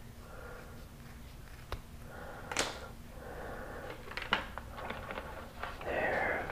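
Hands handling tape and parts on a workbench: rustling, scattered small clicks and taps, and a louder rubbing scrape near the end as a cap is worked onto the end of a tube.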